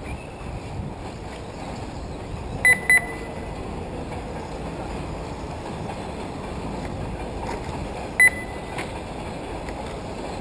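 Short, loud electronic beeps of a race lap-timing system: two in quick succession about two and a half seconds in and a third about eight seconds in. Under them is a steady background rush from the outdoor RC track.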